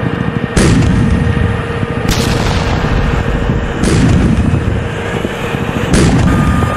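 Tank cannon fire sound effects: four heavy blasts, one every couple of seconds, each trailing off in a long rumble over a continuous low battle rumble. A faint steady whine runs underneath and jumps higher in pitch near the end.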